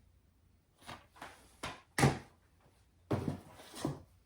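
Plastic DVD cases knocking and clacking as they are handled and set down, a handful of short separate knocks with the sharpest about two seconds in.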